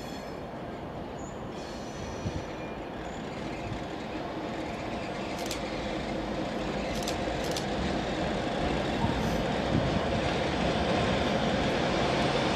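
Nohab MY-class diesel-electric locomotive with a two-stroke EMD V16 engine, running as it approaches slowly and growing steadily louder. A few short sharp clicks come around the middle.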